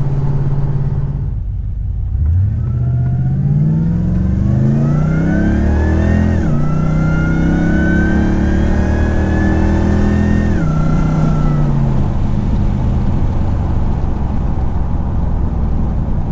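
Supercharged LS V8 accelerating through the gears of a rebuilt 4L60E automatic, with a high supercharger whine that climbs with the revs. Revs and whine rise, fall sharply at an upshift about six seconds in, rise again and fall at a second upshift about ten seconds in, then settle to a steady cruise.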